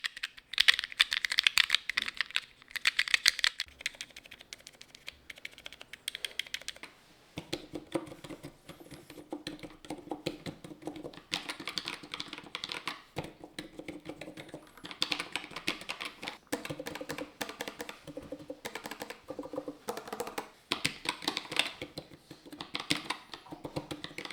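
Typing on a ZSA Voyager low-profile split mechanical keyboard fitted with Choc-style switches: quick runs of keystroke clicks in flurries with short pauses between. A faint low hum comes in underneath about seven seconds in.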